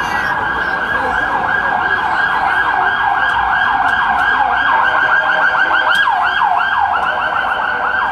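Siren in a fast yelp, about three to four quick falling sweeps a second, loud and continuous.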